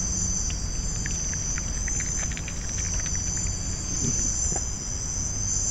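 Steady, high-pitched chorus of night insects trilling without a break, over a low rumble, with a few faint clicks in the middle.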